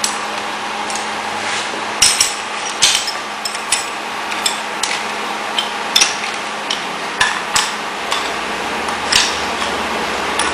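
Irregular sharp metallic clicks and knocks as a steel guide rod and its bolts are handled and fitted against the blade strip on a band saw blade punching press, over a steady background hum. The clicks begin about two seconds in and come at uneven intervals.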